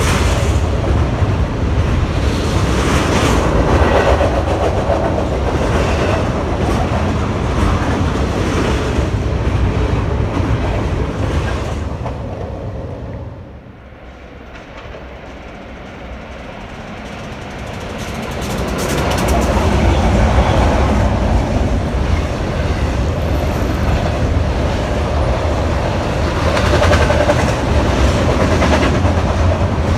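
Double-stack intermodal freight trains rolling past: a steady rumble and clatter of wheels on rail. It drops away about 13 seconds in, then rises again as a second train approaches and its container cars pass.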